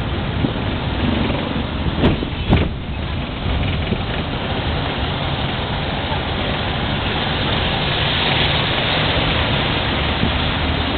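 Steady engine and road noise of a moving jeepney, heard from inside as it rides along. Two sharp knocks come close together about two seconds in.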